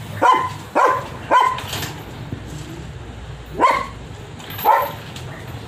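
Dog barking: five single barks, three about half a second apart at the start, then two more about a second apart after a short pause.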